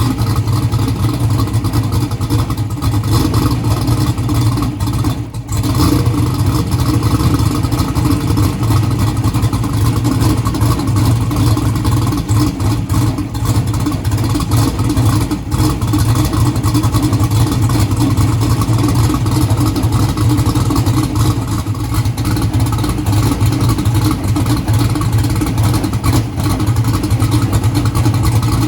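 Turbocharged drag-car engine with a 118 mm turbo, running at a steady idle with a choppy, even note. The level dips briefly about five seconds in.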